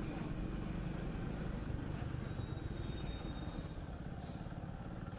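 Motorcycle engine running steadily while the bike is ridden, heard from the rider's seat.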